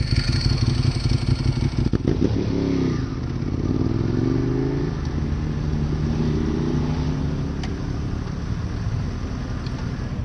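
Motorcycle engine idling in a low pulsing rumble. After an abrupt change about two seconds in, engines rev while riding, the pitch climbing and dropping several times, then settle into a steadier rumble.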